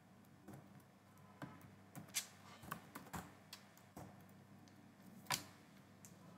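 Keystrokes on a computer keyboard: a faint, irregular run of separate key clicks, with one louder click about five seconds in.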